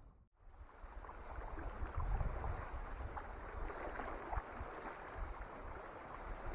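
Water lapping and splashing lightly against a canoe on a lake, with wind rumbling on the microphone; a brief dropout just after the start.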